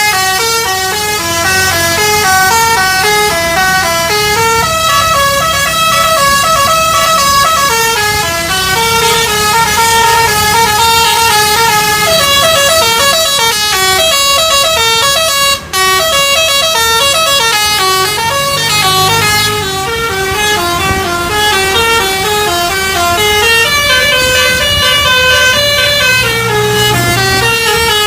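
Telolet-style multi-tone musical bus horn playing a quick melody of stepped notes, with a momentary break about halfway through.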